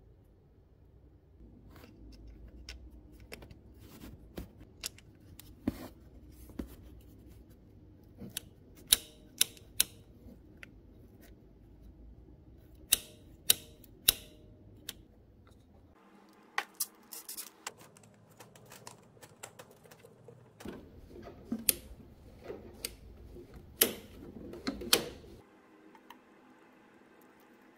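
Irregular sharp clicks and taps of small metal and plastic parts being handled and fitted by hand, over a faint low hum.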